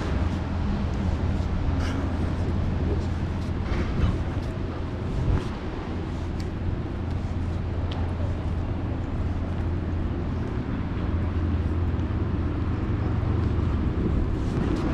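Steady low rumble of outdoor city ambience, with a haze of street noise and a few faint clicks.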